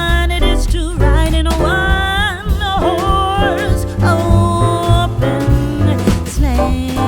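Background music: a melody with wavering, vibrato-like notes over a bass line and regular percussive hits.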